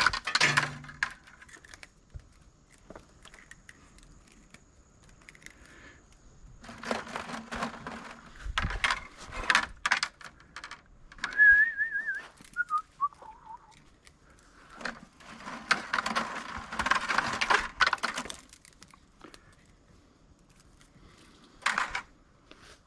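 Clinking and rattling of small metal scrap pieces being handled, in two spells of clatter. Between them comes a short wavering whistle that falls in pitch.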